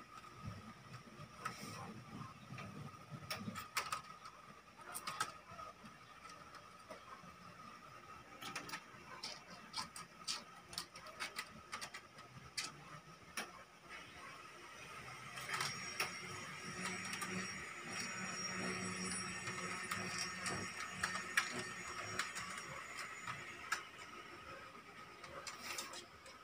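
A cat's claws ticking and scraping on a mesh window screen as it climbs: irregular sharp clicks, thickening into a denser scratching for several seconds past the middle. A faint steady tone runs underneath.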